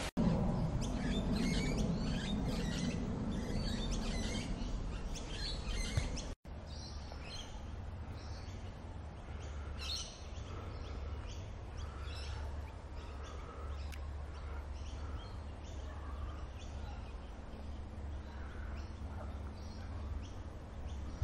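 Birds calling: many short, high chirps repeated throughout, over a low steady rumble. The sound briefly cuts out about six seconds in.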